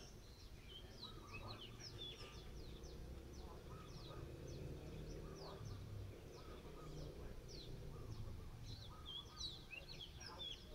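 Small birds chirping and twittering, many short high notes in quick succession, over a low, steady background rumble.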